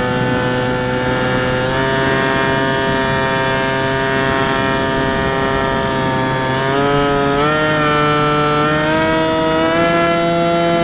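Skywalker 1900 FPV plane's electric motor and propeller whining steadily as it flies. The pitch dips just at the start, rises a little about two seconds in, then steps up near the end as the throttle is opened.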